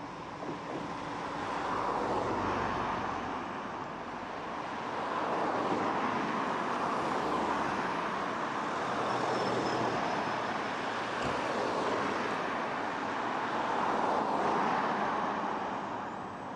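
Road traffic: several cars passing close by one after another, each a rise and fall of tyre and engine noise.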